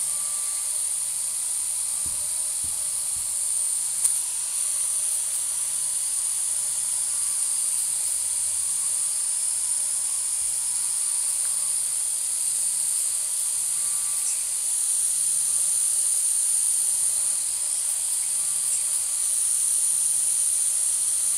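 Steady high-pitched hiss with no speech, a constant background noise in the recording.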